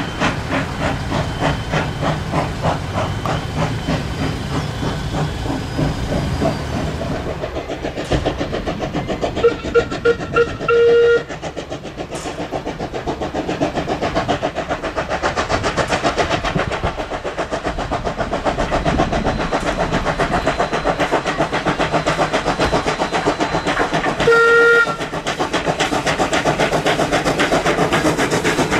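Queensland Rail C17 class 4-8-0 steam locomotive 974 working a passenger train, its exhaust chuffing in a steady rhythm. About ten seconds in the whistle gives three short toots and a longer blast, and near the end it gives one more short blast.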